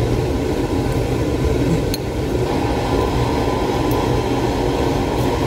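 Steady low machine hum, with a few faint light clicks.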